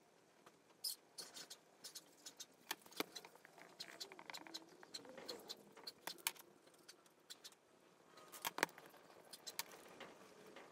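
Quiet workbench handling noises: scattered light clicks and taps as a motorcycle brake caliper and a digital vernier caliper are picked up, set down and handled, with a faint wavering squeak about four seconds in as a marker writes on a whiteboard, and a sharper tap about eight and a half seconds in.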